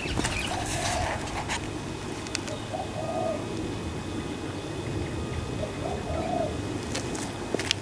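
A dove cooing: three short, low notes a couple of seconds apart, over a steady low rumble, with a few sharp clicks near the end.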